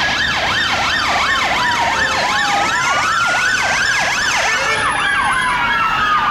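Police siren: a fast yelp rising and falling about three times a second, over a slower wail that falls, then rises about two seconds later and falls again.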